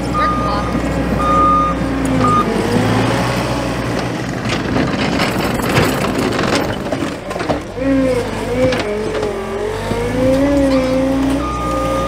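John Deere skid steer's diesel engine running under load, its pitch dipping and rising as the hydraulics work, while the steel bucket scrapes through dirt and roots in the middle. The reverse alarm beeps at the start and again near the end.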